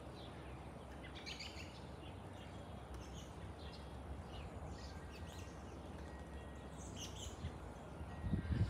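Small birds chirping in short, scattered calls over a faint, steady low rumble, with a few low thumps near the end.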